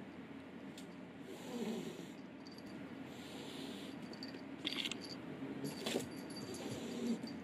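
Minuet cat hissing at a kitten several times in short bursts, some with a low falling growl, as a threat.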